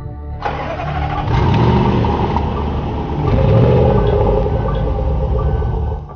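Range Rover Sport SVR's supercharged 5.0-litre V8 accelerating flat out from a standstill. The engine comes in suddenly about half a second in and gets louder in two steps as the run goes on.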